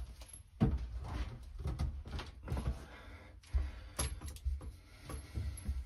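Irregular knocks, clicks and rustling of hands working up under a kitchen sink among the drain and supply pipes, handling the new faucet's supply hose connections.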